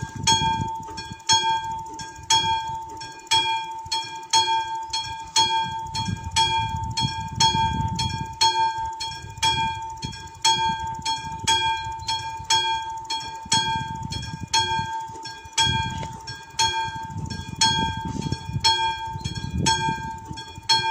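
Level-crossing warning bell, the classic mechanical bell of an AŽD 71 crossing signal, ringing in a steady rhythm of about two strikes a second: the crossing is warning of an approaching train.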